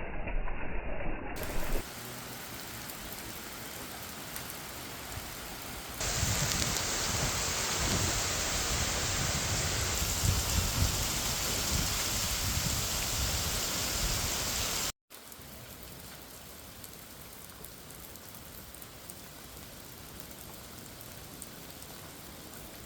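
Rain falling, a steady even hiss. It jumps in level at hard cuts: louder and fuller from about six seconds in, then after a brief dropout about fifteen seconds in it is quieter.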